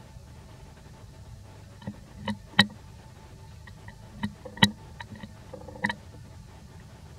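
Newborn monkey suckling at its mother's nipple: a handful of short, sharp wet smacking clicks, two of them louder, starting about two seconds in over a low steady rumble.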